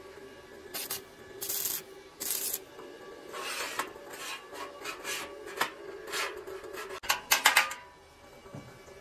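Steel strips scraping and rubbing against a welded steel frame as they are handled and fitted, in irregular rasping strokes, each a fraction of a second to about half a second long, with the loudest cluster of quick scrapes near the end. A steady low hum runs underneath.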